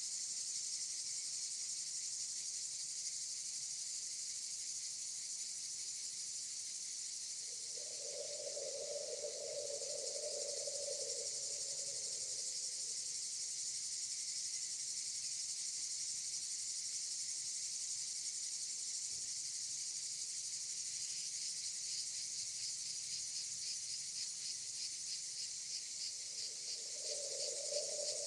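Steady high-pitched chorus of insects such as crickets or cicadas, turning into a fast even pulsing over the last several seconds. A lower hum rises for a few seconds about eight seconds in, and again near the end.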